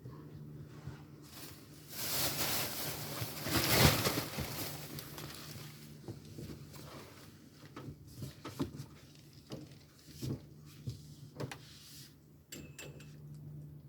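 Rustling and handling noise, with a louder swell of rustle from about two to five seconds in, then scattered light clicks and taps, over a steady low hum.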